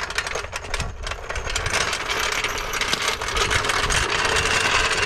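An engine running steadily at a constant pitch, with a few knocks in the first second.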